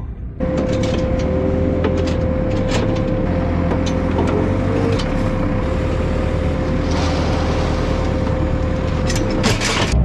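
JCB telehandler's diesel engine running under load, with a steady whine held for most of the time and scattered knocks and clicks, as it sets a wrapped round bale onto a flatbed trailer. The sound cuts in about half a second in.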